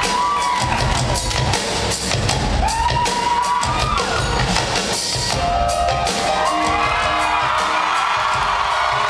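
Live band music with drums, loud and dense, with the audience cheering and whooping over it.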